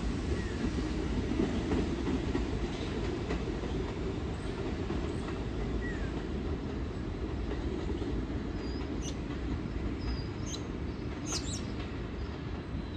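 R68-series subway train pulling away, the rumble of its wheels on the rails slowly fading. Birds chirp a few times near the end.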